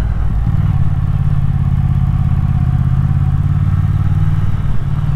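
Triumph Thruxton R's 1200 cc parallel-twin engine running steadily at low revs under way, a low, even engine note.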